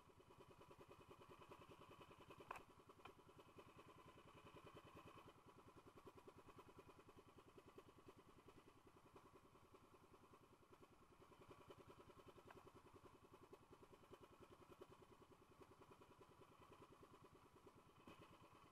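Small engine of an outrigger fishing boat running steadily, with a fast, even pulse, heard faintly. A short click about two and a half seconds in.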